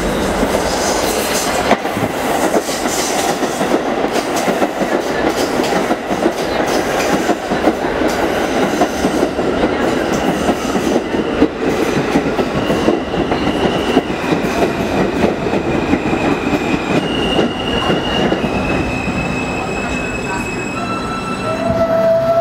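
New York City Subway R160 train with Alstom AC propulsion pulling into a station and braking: a loud rumble of wheels on rail as the cars pass. From about halfway in come steady high whining tones from the traction motor inverters, jumping from one pitch to another as the train slows. A lower tone sounds just before it stops at the end.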